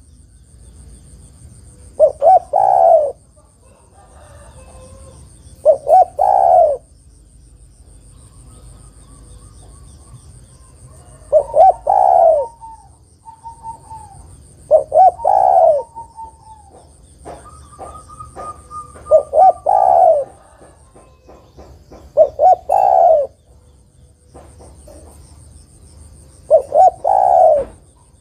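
Spotted dove cooing: seven phrases about every four seconds, each two short notes and then a longer one. The uploader presents it as a female tekukur calling a male.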